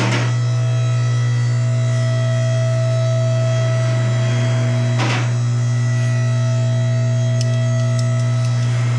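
A loud, steady electrical hum with several fixed tones above it, and a brief rushing swish about five seconds in.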